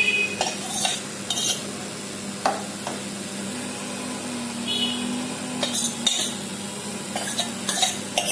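Steel ladle stirring a thin curry gravy in a steel pot, with several sharp clinks of metal on metal.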